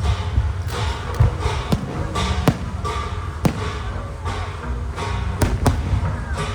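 Aerial fireworks shells bursting: a series of sharp bangs at irregular intervals, two of them close together near the end, over a steady low rumble.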